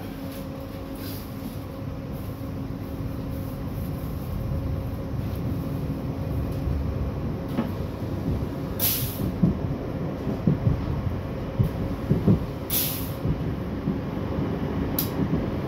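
Croydon Tramlink tram heard from inside the passenger saloon as it runs along the track, getting gradually louder. A steady hum runs for the first seven seconds or so. Then comes heavier rumbling from the wheels and rails, with several sharp knocks and three short hisses.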